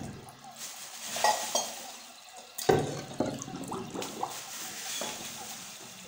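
Unglazed clay plates being set into a plastic bucket of water: water sloshing and dripping, with a sharp knock about two and a half seconds in as a plate meets another. Under it, a faint sound of the dry clay soaking up the water.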